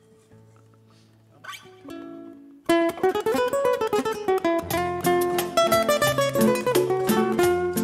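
Two acoustic guitars: a few soft notes and light strums die away, then a little under three seconds in a lively introduction starts loudly, with quick picked lead notes over strummed chords and maracas shaking the beat.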